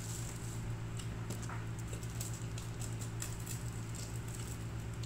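Soft, irregular chewing and mouth clicks from someone eating buffalo chicken wings, over a steady low hum.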